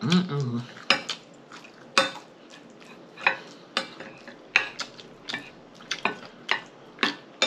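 Eating utensil clinking and scraping against a dish of food, a string of sharp, unevenly spaced taps.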